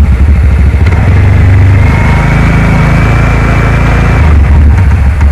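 TVS NTORQ scooter's single-cylinder engine running at idle, then held at higher revs from about a second in for about three seconds before dropping back to idle. It runs without its earlier abnormal noise: the fault, a loose one-way clutch nut, has been tightened.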